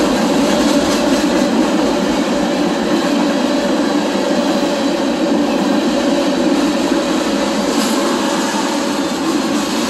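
Tank cars of a CSX freight train rolling past at speed: a steady, loud rumble of steel wheels on the rails.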